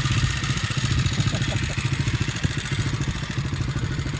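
1970 Honda Z50 Mini Trail's small single-cylinder four-stroke engine running steadily, its rapid firing pulses fairly even.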